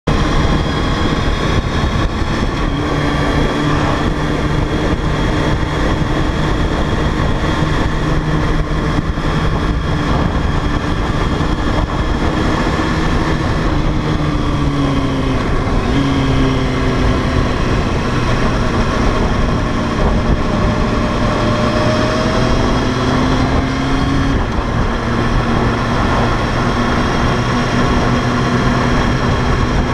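Sport motorcycle engine running steadily at road speed, with wind rushing over the helmet-camera microphone. The engine note dips and shifts pitch about halfway through.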